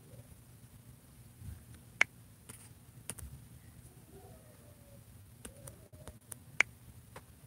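A few scattered sharp clicks or taps over quiet room noise; the two loudest come about two seconds in and again near the end, with fainter ones in between.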